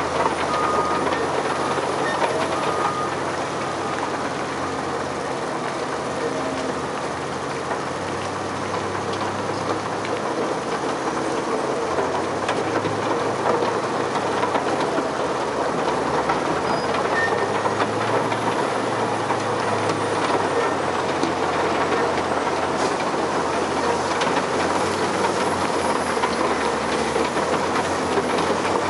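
Extec S-5 mobile screening plant running as it sieves black soil: a steady, dense mechanical rattle over a diesel drone. A Cat 950H wheel loader's diesel engine works alongside, its note shifting up and down midway.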